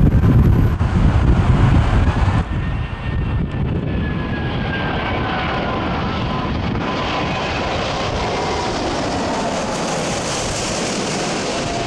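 Emirates Airbus A380 jet engines on final approach, passing close: a steady rush of engine noise with whining tones that fall in pitch as it goes by, the hiss swelling near the end. Wind buffets the microphone for the first couple of seconds.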